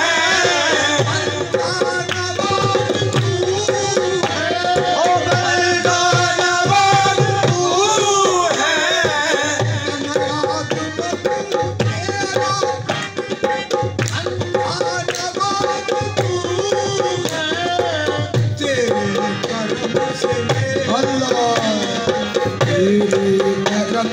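Qawwali music: tabla drumming under a wavering, ornamented melody line.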